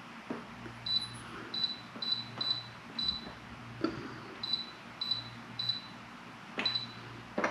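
Electric pressure cooker's control panel beeping as its time buttons are pressed: a string of short, high beeps on one pitch, some in quick pairs, with a few sharp clicks of handling between them.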